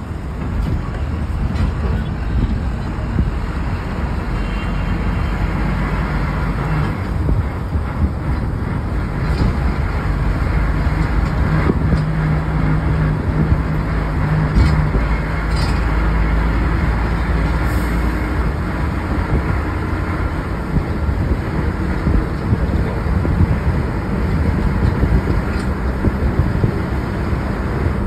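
Steady engine and road noise heard from inside a moving vehicle, with a low engine hum that grows stronger for a few seconds around the middle.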